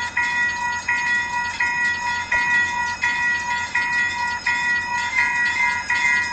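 Railroad crossing warning bell ringing steadily at about one and a half strikes a second, each strike ringing on into the next.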